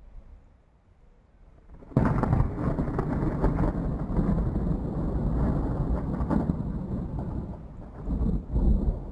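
Thunder after a lightning strike: it starts suddenly and loudly about two seconds in, then rumbles on, swelling again near the end.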